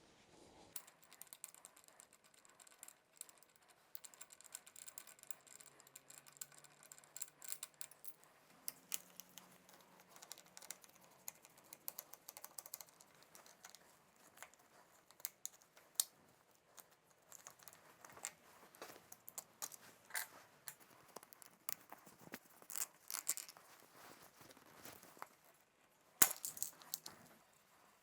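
Old rubber handlebar grips being cut and torn off a motorcycle's handlebars: scraping, tearing and scattered small clicks and taps of metal on metal, with a few louder knocks near the end.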